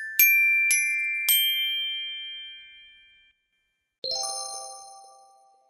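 Intro jingle of bright chime-like struck notes: three quick notes ringing out and fading, a short silence, then a lower struck chord about four seconds in that rings and dies away.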